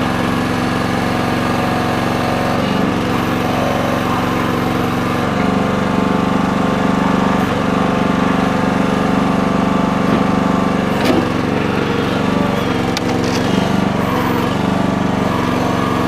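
Small gas engine of a Red Rock towable mini backhoe running steadily, its note shifting a couple of times, with a few light clicks about eleven and thirteen seconds in.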